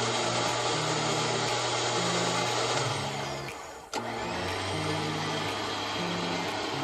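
Electric winch motor running under the remote's control; about three seconds in it cuts out and winds down, then starts again with a sharp click just before four seconds and runs steadily.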